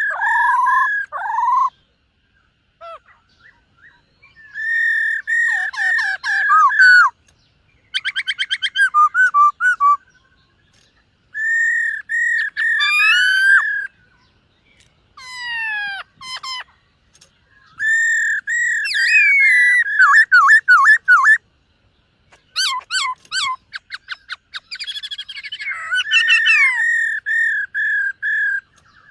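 Black-throated laughingthrush singing a long, varied song: runs of repeated clear whistled notes, fast trills and sweeping slurs, delivered in bursts of one to three seconds with short pauses between them.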